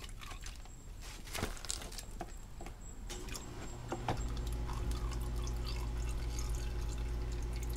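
Fluid dripping and trickling out of a tilted GM Ecotec engine block into a plastic tub. A few knocks sound as the block is handled and set down on the tub, and a steady low hum comes in about halfway.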